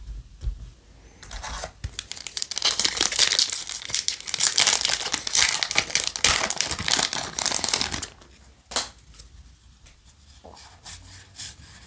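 A foil Yu-Gi-Oh! booster pack being torn open and crinkled for about seven seconds. After that come a few soft clicks as the cards inside are slid out and handled.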